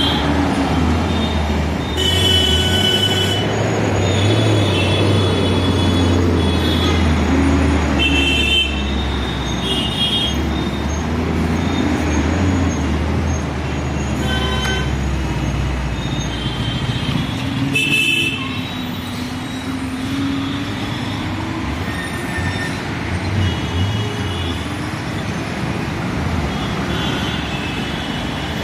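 Busy city road traffic: a bus engine rumbles deeply close by for roughly the first half, over steady road noise. Vehicle horns honk in short toots again and again throughout.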